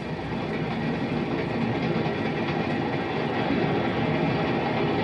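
Train in motion: a steady rumble and clatter of the railway cars, growing slightly louder, heard as a sound effect on an old 16mm film soundtrack.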